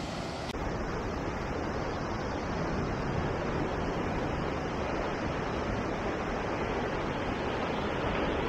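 Ocean surf breaking and washing over a rocky shoreline, a steady rushing sound.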